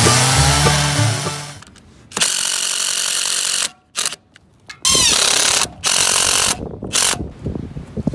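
A cordless DeWalt 20V driver driving screws, in several separate bursts of about a second or less, one with a rising whine as the motor spins up, the screws fixing the wedge that holds the ladder rail of a chainsaw mill in place.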